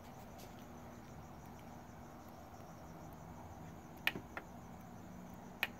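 Faint steady high-pitched whine and low hum, with two sharp clicks about four seconds in and near the end: buttons being pressed on an under-cabinet TV/DVD/radio as it is switched from DVD to TV.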